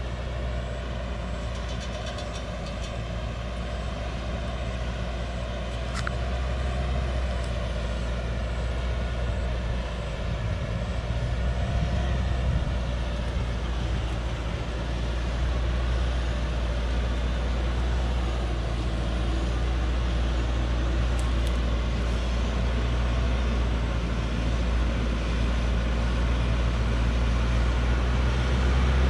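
Old-model Hoa Mai diesel truck heavily loaded with acacia logs, its engine labouring up a steep dirt grade with a steady low drone that grows gradually louder as it approaches.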